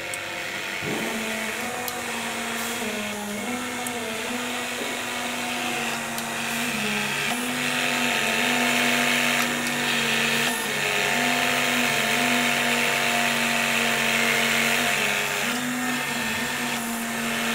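Electric hydraulic torque-wrench pump running, its motor hum stepping slightly down in pitch and back up every second or two as the load changes while the wrench tightens the bolt.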